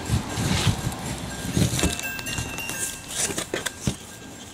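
Cardboard shipping box handled by hand: fingers scraping and pulling at the flaps and seams, with rubbing and knocking close to the microphone.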